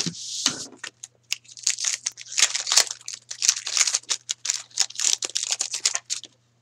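Foil trading-card pack being torn open and its wrapper crinkled by hand: a quick, dense run of crackling and tearing that stops about six seconds in.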